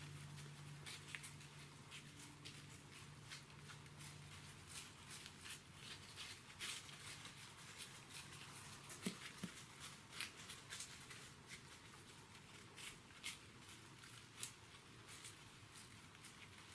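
Whitetail deer walking through dry fallen leaves: faint, irregular crunching and rustling of hooves in the leaf litter.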